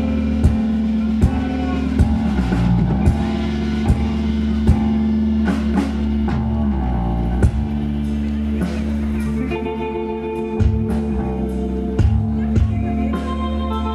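Live rock trio playing without vocals: electric guitar and bass guitar holding long low notes over sparse drum-kit hits. A higher melodic guitar line comes in about ten seconds in.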